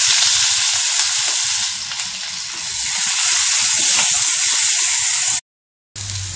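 Chopped onion sizzling as it fries in hot oil in a pan, a dense steady hiss. The sound drops out completely for about half a second near the end.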